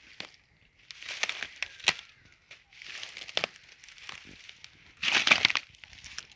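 Footsteps crunching through dry leaves and undergrowth, with small twig snaps, in irregular bursts; the loudest crunch comes about five seconds in.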